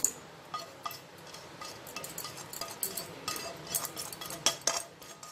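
Roasted semolina (rava) being tipped from a bowl into a pan of sugar syrup, with a run of light clinks and taps of kitchenware against the pan, loudest near the start and about four and a half seconds in.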